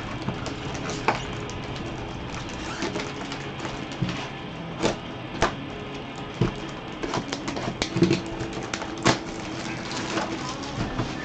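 Plastic shrink-wrap crinkling and a cardboard trading-card box being handled and opened by hand, with many sharp crackles and taps, the loudest about eight to nine seconds in.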